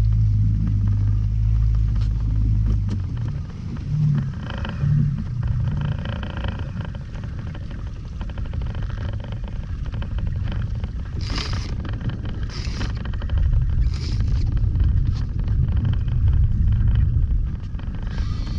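Boat engine idling with a steady low hum that stops about three seconds in, leaving a low rumble of wind and water noise, with a few short hissing bursts later on.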